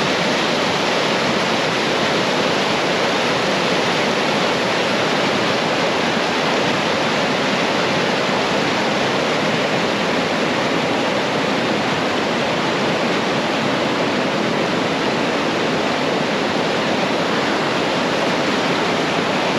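Steady rush of a waterfall, water cascading down tiers of rock. It cuts in and out abruptly.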